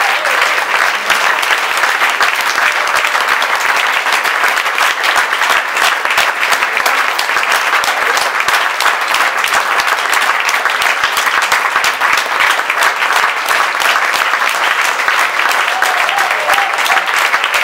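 Audience applauding: dense, steady clapping from a roomful of people, with a few voices calling out near the end.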